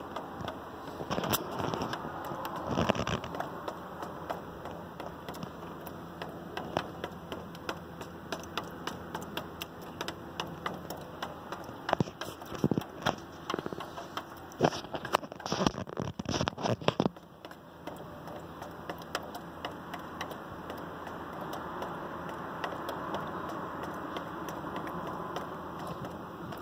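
Water dripping from the balcony above, the drops tapping irregularly on a window sill and a cut-off plastic bottle, over a steady background hiss; the taps come thicker and louder about twelve to seventeen seconds in.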